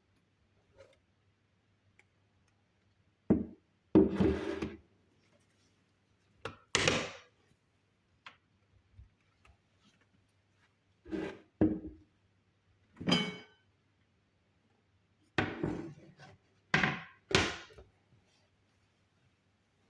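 Kitchen handling noises after blending: a series of short knocks, clunks and scrapes of utensils and containers, in about eight separate bursts with pauses between them. One clink about two-thirds of the way through rings briefly.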